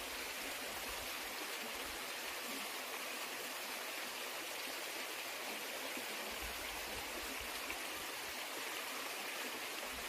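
Mountain stream running steadily: an even rush of water with no change in level.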